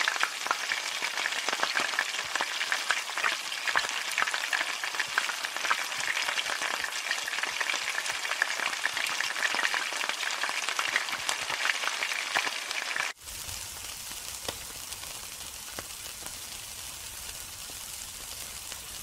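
Food sizzling and crackling in hot oil in a wok, a dense spatter of tiny pops. About 13 seconds in it cuts to a quieter, steadier sizzle with a low rumble underneath, fitting meat skewers grilling over charcoal.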